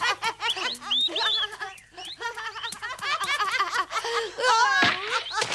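Two boys laughing and whooping with glee, short cheerful laughs and cries one after another.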